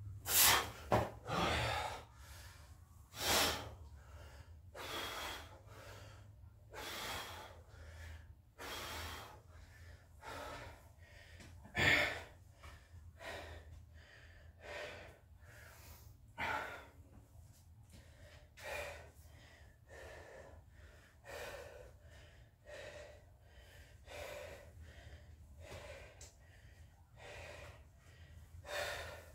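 A man breathing hard and gasping for air, winded from doing burpees. Loud breaths come quickly in the first few seconds and again at about 12 seconds, then settle into slower, quieter breaths every second or two.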